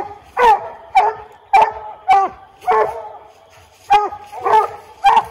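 Coonhounds (English and Walker) barking treed: a steady chop of short barks, about two a second. This is the sign that the hounds are holding a raccoon up the tree.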